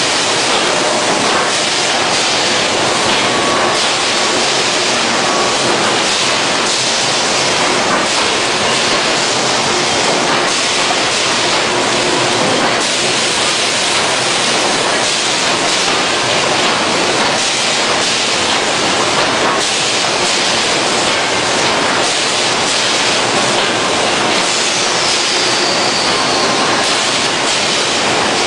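Steady, loud industrial din of a plywood mill's machinery around a 100-opening veneer hot press, an even hiss-like roar with no clear rhythm.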